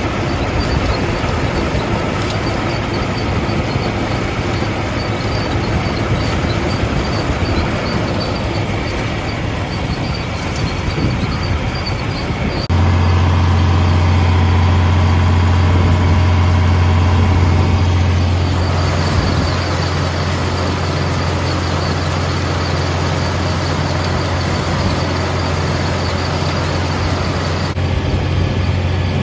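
Vintage John Deere tractor engine running steadily with a deep hum. Its tone and loudness change abruptly about 13 seconds in, and again shortly before the end.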